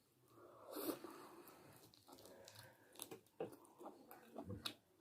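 Faint eating sounds: a person chewing, with a few soft clicks.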